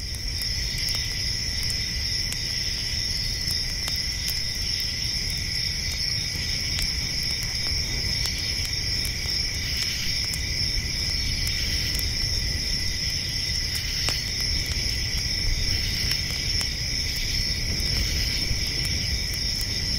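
Crickets chirring steadily at a high pitch over a low rumble, with scattered faint clicks.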